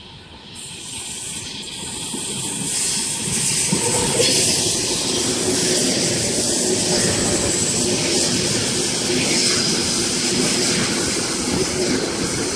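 Eight-car Sydney Trains OSCAR (H set) electric multiple unit running through the station at speed without stopping. The noise builds over the first few seconds as it approaches, then holds as a loud, steady rush of wheels on rail.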